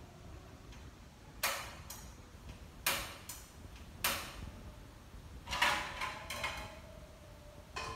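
Kitchenware handled at a stove: a few separate sharp clacks of pots, lids or utensils being set down, then a busier clatter about five and a half seconds in that leaves a brief metallic ring.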